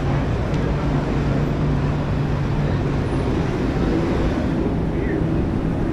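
Steady city street traffic noise: a low, continuous rumble of passing vehicles.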